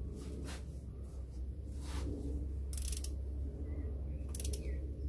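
Ratchet wrench with an extension tightening a cylinder-head bolt on a VW Polo 1.2 engine: a handful of short, sharp ratchet clicks, the loudest near the middle, over a steady low hum.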